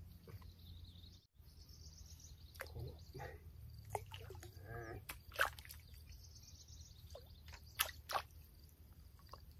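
Short splashes and drips of water, several in a row, the sharpest about halfway through and twice close together near the end, over a steady chirring of insects.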